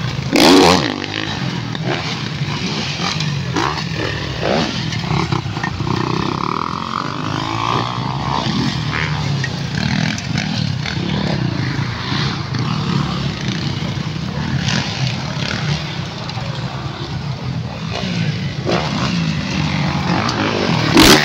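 Dirt bike engines running and revving steadily, the pitch rising and falling as the riders throttle on and off around the track, with a loud short burst about half a second in.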